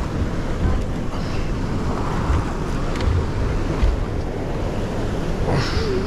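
Wind buffeting the microphone over the sound of surf breaking on the shore, a steady, gusty rumble.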